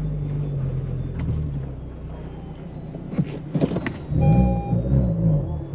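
4x4 SUV engine running under load, revving up and falling back about four seconds in. A few sharp knocks come just before, and a short electronic beep sounds as it revs.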